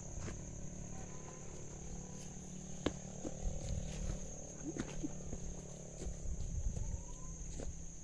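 Footsteps and scattered knocks and rustles of someone walking a dirt path through brush, over a steady high-pitched insect drone.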